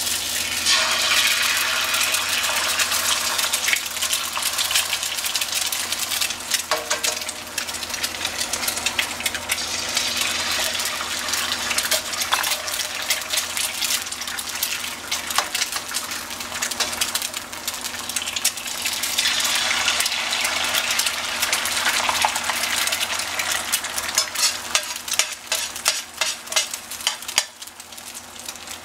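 Eggs frying in butter in a stainless steel skillet: a steady crackling sizzle, louder just after the start and again about two-thirds of the way through.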